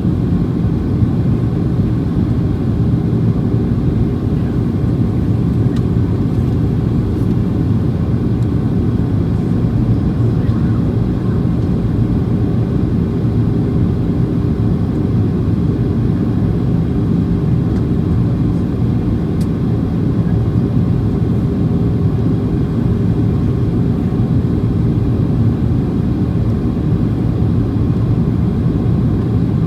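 Steady, unchanging low rumble inside the passenger cabin of a Boeing 737-800 in motion, from its CFM56-7B engines and airflow, heard from a seat by the right wing.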